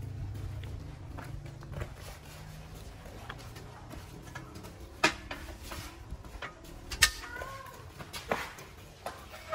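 Light sharp clacks and taps of badminton rackets and shuttlecocks being handled on a concrete court, the two loudest about two seconds apart, with a faint child's voice.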